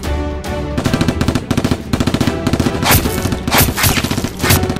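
Rapid machine-gun fire sound effects, with several louder single shots in the last two seconds, over background music.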